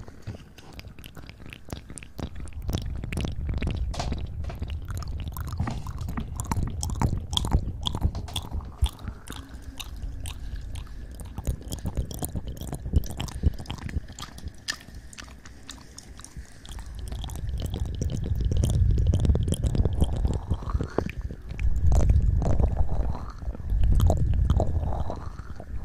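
ASMR mouth sounds close into a condenser microphone: a dense run of wet lip and tongue clicks and smacks. In the second half the lips press onto the microphone, adding swells of low rumble.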